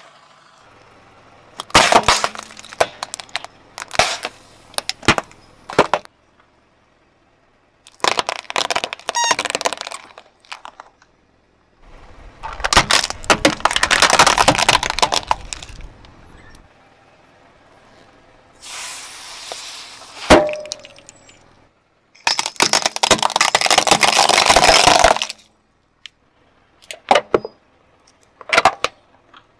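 Plastic toys and objects crushed under a slowly rolling car tyre, cracking, snapping and crunching in several separate bursts with silent gaps between them. A single sharp snap comes about two-thirds of the way through, and scattered cracks come near the end.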